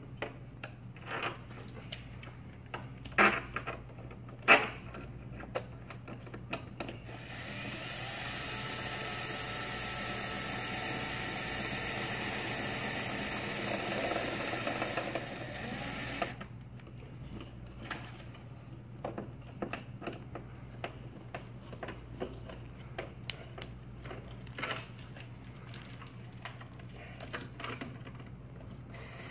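A DeWalt cordless drill/driver runs steadily for about nine seconds, starting about seven seconds in, as it drives screws through a plastic access-point mounting ring into a ceiling tile. Before and after it come sharp clicks and knocks of a screwdriver and of the plastic ring and tile being handled.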